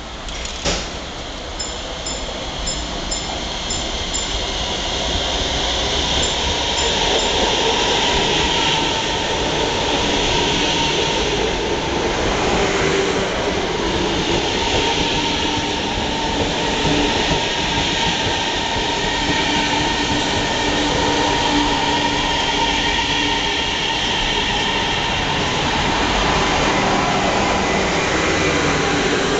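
CSR electric multiple unit pulling into the station alongside the platform: wheels on rail and running gear grow louder over the first several seconds, then hold loud and steady with a faint whining tone as it slows. A single sharp knock sounds about a second in.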